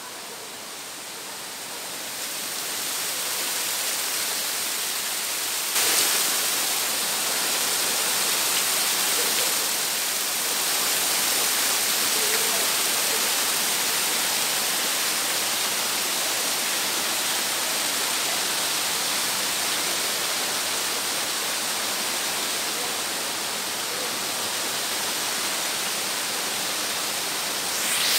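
Steady rushing hiss of running water. It grows louder over the first few seconds and steps up suddenly about six seconds in.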